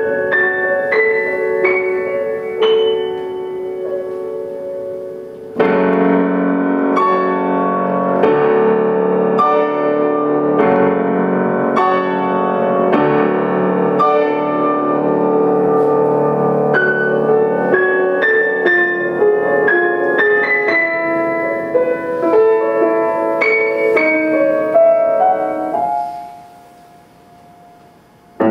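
Solo grand piano playing a fantasy: a quieter passage fades, then a loud full chord comes in suddenly about five seconds in and the playing runs on with many quick notes over held chords. Near the end it dies away to a brief pause.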